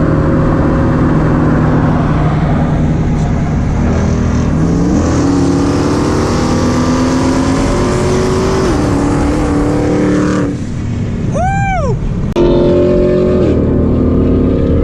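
Car engine running loud under way, its pitch climbing and then dropping at a gear change about a third and again about halfway through. A short rising-and-falling whistle-like tone sounds about three-quarters of the way in, while the engine briefly quietens.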